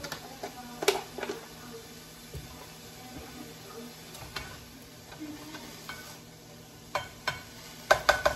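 Spinach and tomato-and-onion pico sizzling quietly in a nonstick frying pan, with a sharp knock about a second in. Near the end a plastic slotted spatula clicks and scrapes against the pan several times as the vegetables are stirred.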